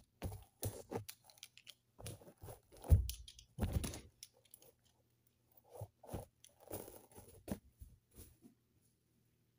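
Scattered knocks and rustles from a person moving about, with one loud thump about three seconds in and a short quiet gap a couple of seconds later.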